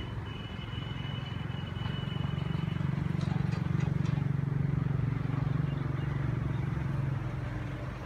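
A low engine hum swells over a few seconds and then eases off, with a thin, steady high tone during the first few seconds.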